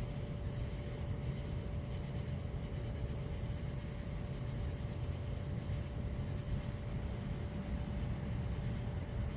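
Steady low rumble of outdoor background noise with a faint steady hum, no sudden crack or clap.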